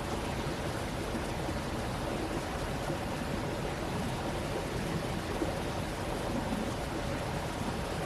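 Steady rushing of a flowing stream, with a low rumble underneath.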